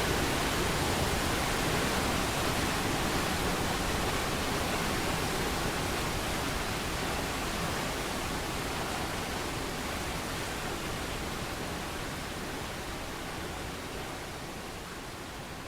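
Steady rushing roar of Niagara Falls, an even wash of falling water, slowly fading out.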